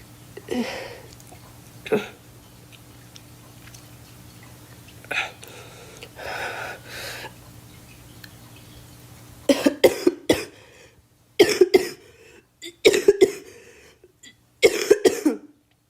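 A girl coughing. There are a few softer throat sounds in the first half, then from about halfway come four fits of hard, sharp coughs, two or three coughs to each fit.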